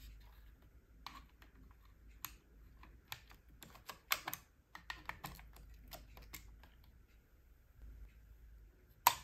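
Irregular small clicks and scrapes of a screwdriver tip working against AA batteries and their spring contacts in a plastic remote-controller battery compartment as the batteries are pried out. The clicks come thickest around the middle, and one sharp click sounds near the end.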